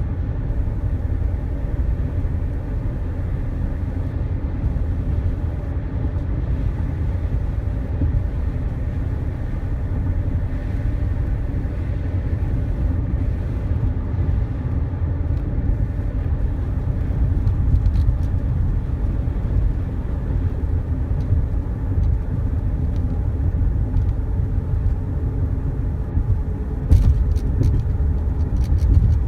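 Steady low rumble of a car on the move: road and wind noise, with a few short clicks near the end.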